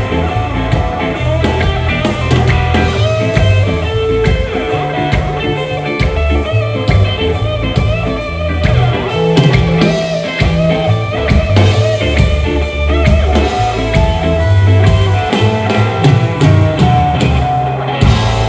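Rock band playing live: guitar over a bass line that moves between low notes, with drums.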